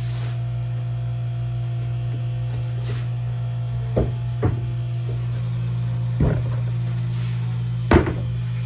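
A few short knocks and bumps, four in all, the loudest near the end, over a steady low hum.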